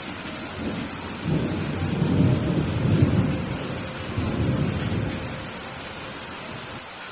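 Steady rain hiss with a low rumble of thunder that builds about a second in, rolls through two swells and fades away near the end.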